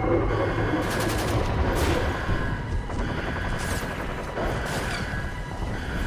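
Gunfire sound effects: several short bursts of rapid shots, about one burst a second, over a steady high-pitched tone and a low rumble.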